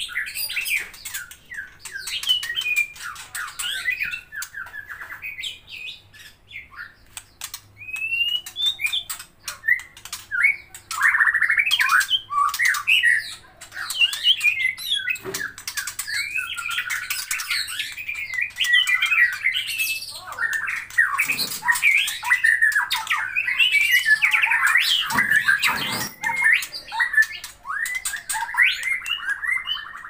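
White-rumped shama singing a long, varied run of rapid whistles and chattering calls, with a cluster of sharp clicks about a quarter of the way in.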